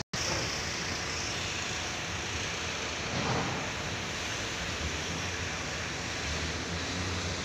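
Steady wind noise and open-air hiss on an open ship's deck, with a brief drop-out at the very start and a slight swell about three seconds in.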